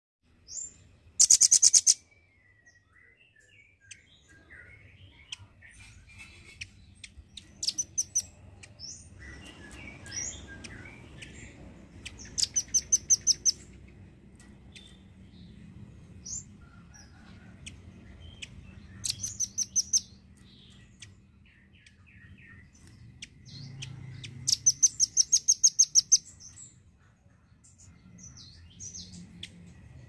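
Velvet-fronted nuthatch calling: four loud bursts of rapid, high, evenly repeated notes, each a second or two long, with scattered single short chirps between them.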